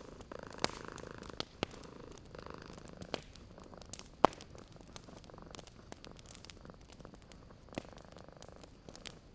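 A cat purring in slow swells, over a fireplace's wood fire giving sparse sharp pops and crackles. The loudest pop comes about four seconds in.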